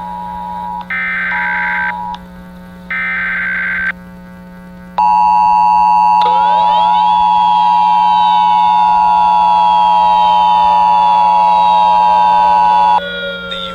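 Emergency Alert System SAME header: two one-second bursts of warbling data tones, a second apart. About five seconds in, the steady two-tone EAS attention signal starts and holds for about eight seconds before cutting off. Over it runs a siren wail that rises quickly and then falls slowly.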